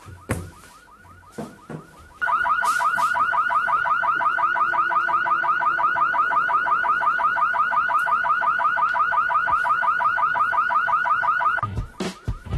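Electronic alarm ringing in a rapid, even trill, faint at first, then loud from about two seconds in until it cuts off suddenly near the end. A few short knocks come before it gets loud.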